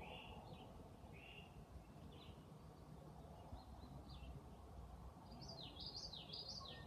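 Faint bird chirps over a low steady background noise: short notes repeated every half second or so, then a quick run of rising and falling notes near the end.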